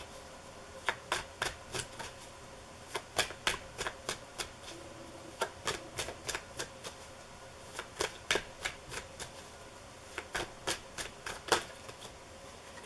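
A deck of tarot cards being shuffled overhand from hand to hand: runs of quick, sharp card slaps with short pauses between them.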